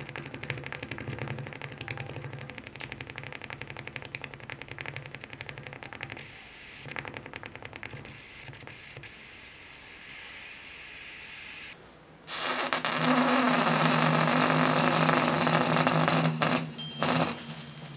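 Rapid crackling and sizzling, typical of a red-hot metal ball searing into a material, dying away after about six seconds. About twelve seconds in, a loud steady hiss with a low hum under it starts abruptly, runs about five seconds and cuts off.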